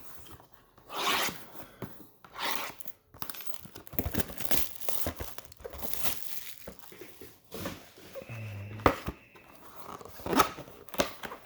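A cardboard retail box of trading-card packs being torn open, with foil card packs crinkling and rustling as they are handled and pulled out.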